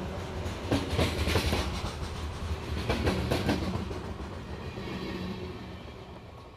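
Freight train's covered hopper cars rolling past close by, steel wheels clicking and clunking over the rail joints, with a steady low hum underneath. The sound fades steadily as the end of the train goes by.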